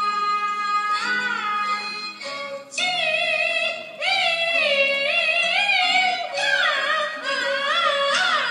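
Peking opera aria sung in a high voice over a low instrumental accompaniment. The singer holds one long note for about the first two seconds, then sings phrases with wide pitch bends and ornaments.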